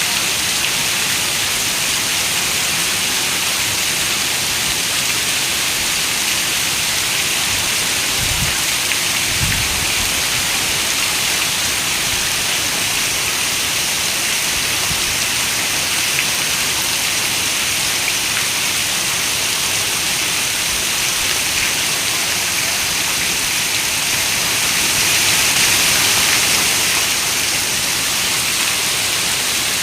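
Steady rain, a dense even hiss with no pattern of individual drops. About a third of the way in come two brief low thumps, and near the end there is a slight swell in loudness.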